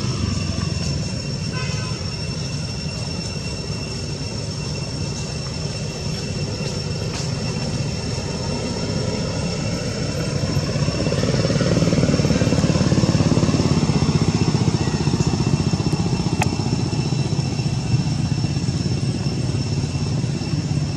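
A steady low background rumble under a thin, steady high-pitched whine. The rumble swells louder about ten seconds in and eases off again a few seconds later.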